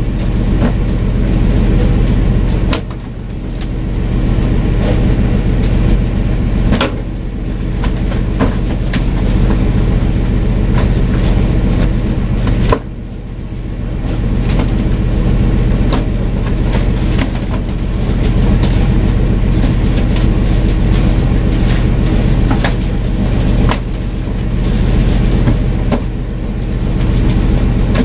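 Fishing boat's engine running with a steady low drone, with frequent sharp knocks and slaps as skipjack tuna hit and flap on the wooden deck.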